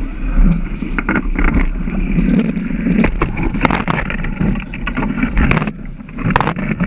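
J/105 sailboat under way: water rushing and splashing along the hull while wind buffets the microphone with a steady low rumble, broken by many short knocks and slaps.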